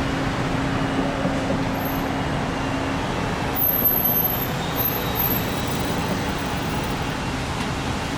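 Steady road traffic noise, heavy vehicles such as buses running close by, with a low hum for the first few seconds and a few brief high squeaks around the middle.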